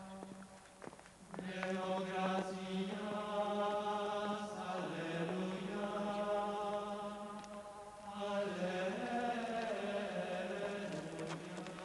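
Church plainchant: voices singing long, held notes on a slow, steady line, pausing briefly about a second in and again about eight seconds in.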